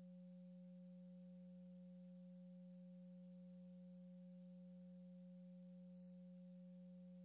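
Near silence: only a faint, steady low hum that does not change.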